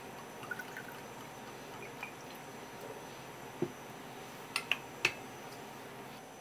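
Liquid poured from a glass bottle into a small ceramic cup, with faint gurgles, then a knock as the bottle is set down on the wooden counter, followed by three sharp clicks.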